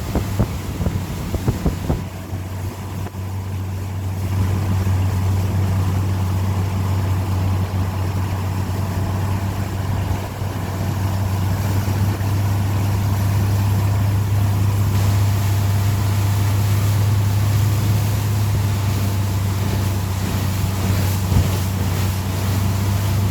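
Tow boat's engine drone at a steady pitch under way, holding speed, with wind buffeting the microphone and water rushing; a few knocks in the first two seconds.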